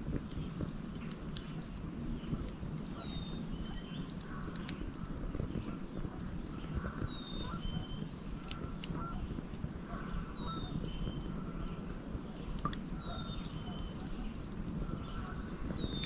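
Wood fire crackling with scattered sharp pops, while geese honk and a small bird repeats a two-note whistle, high then a little lower, every few seconds.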